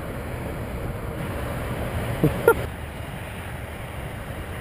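Steady wind noise buffeting the microphone, with a short vocal sound about two and a half seconds in.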